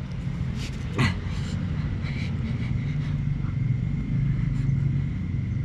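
A steady low motor-like rumble runs throughout, with a faint steady high tone above it. A brief short sound comes about a second in.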